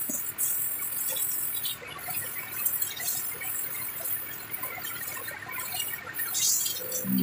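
Hand-held spray nozzle on a hose hissing in on-and-off spurts as a printer mechanism is sprayed clean. Music comes in near the end.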